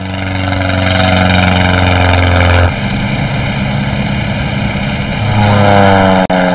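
Propeller engine of a vintage biplane droning steadily in flight. The tone changes abruptly partway through, and its pitch falls near the end as the plane passes.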